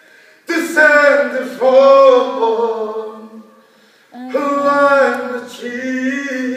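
A man singing a Māori waiata unaccompanied, with long held notes: one phrase, a short pause, then a second phrase beginning about four seconds in.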